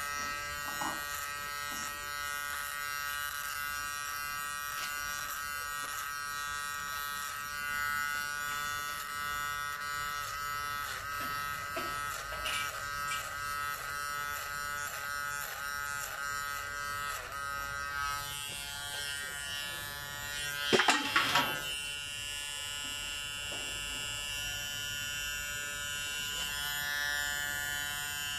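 KM-719 electric hair clipper running with a steady buzzing hum while cutting hair. Its pitch dips repeatedly, about twice a second, through the middle. One loud clatter comes about two-thirds of the way in.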